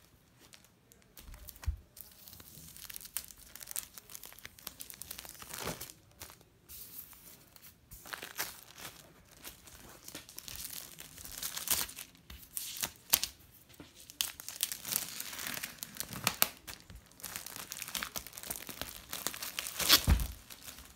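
Plastic shrink-wrap being torn and crumpled off a hardback book: crinkling and tearing in irregular bursts, loudest near the end.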